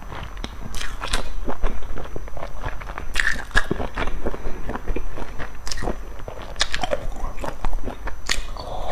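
Close-miked wet eating sounds from a large steamed dumpling dipped in sauce: a run of irregular soft smacks, squelches and chewing clicks.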